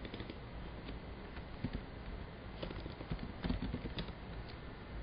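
Computer keyboard keys being typed, an irregular scatter of light clicks, over a steady low background hum.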